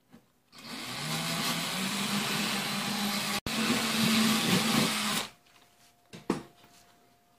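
Cordless drill running under load as it drills into the fender's edge by the wheel arch. It runs steadily for about five seconds with a split-second break just past the middle, then stops.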